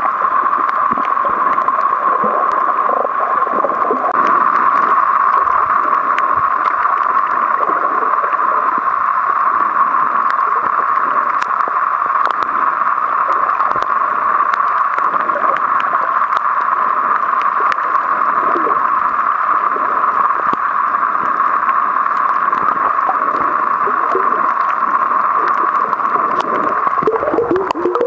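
Underwater water noise picked up by a submerged camera: a steady, muffled hiss with scattered faint clicks.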